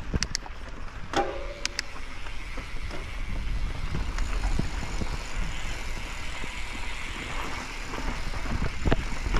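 Mountain bike rolling along a dirt singletrack: a steady low rumble of tyres and riding noise, with a few sharp clicks and rattles from the bike in the first two seconds.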